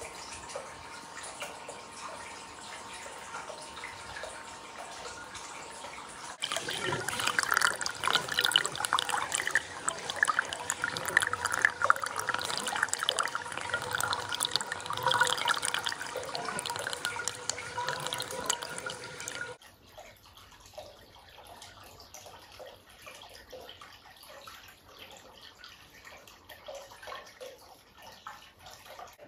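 Sulfur hot-spring water pouring from a crusted inflow pipe into a bath, splashing and dripping. It comes in much louder about six seconds in, then drops to a faint trickle for roughly the last ten seconds.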